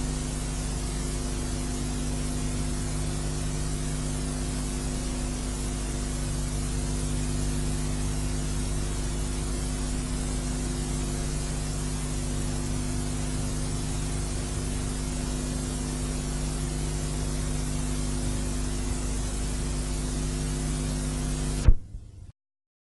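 Steady hum with constant hiss that cuts off with a click near the end.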